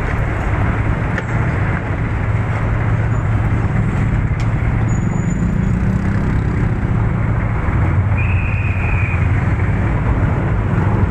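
Motorcycle engine idling steadily close by, a low even hum with street traffic noise around it. A short high beep sounds about eight seconds in.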